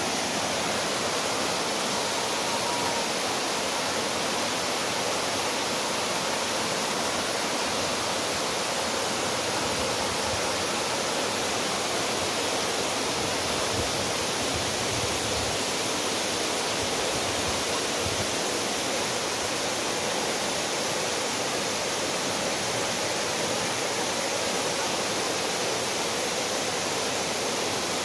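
Waterfall: water pouring over a rock lip and plunging into the gorge, a steady, unbroken rush.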